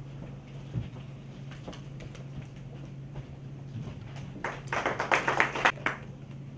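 A short burst of scattered clapping from a few people, lasting about a second and a half and starting about four and a half seconds in, over a steady low hum.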